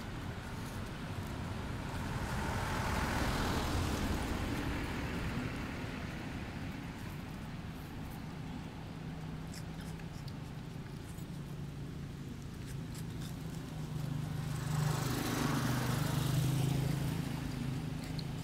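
Motor vehicles passing by: one swells and fades about three seconds in, and a second, with a low engine note, passes near the end.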